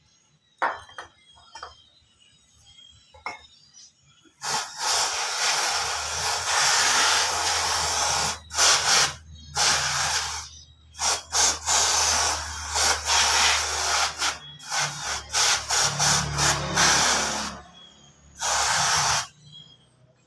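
Aerosol cleaner sprayed through a straw nozzle onto a disc brake pad: long hissing blasts with a string of short bursts between them, starting about four seconds in after a few faint handling clicks.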